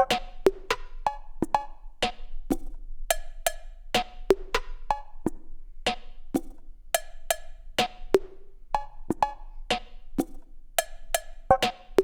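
A sequenced percussion pattern played by Ableton Live's Impulse drum sampler on its own. Short, sharp percussion hits, some pitched like hand drums, repeat in a steady rhythm of about three a second.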